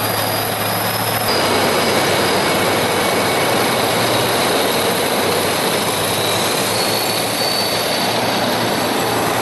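Tracked self-propelled howitzers (2S35 Koalitsiya-SV) driving past on asphalt: steel tracks clattering and squealing over the engines, with a thin high whine. The noise grows louder about a second in.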